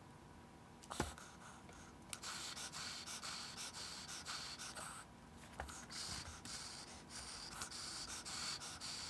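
Faint scratchy rustling of hands pressing a cardboard mouth plate's glued edge into a foam puppet head, with one sharp click about a second in.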